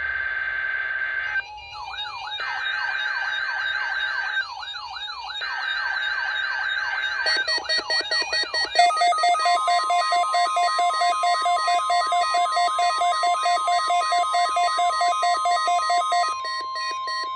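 Weather radio alert receivers sounding their alarms for a Required Weekly Test. A steady high tone with brief gaps, overlaid with rising-and-falling siren-like wails, gives way to rapid pulsing beeps. Partway through, a single steady weather radio warning tone starts and carries on past the end.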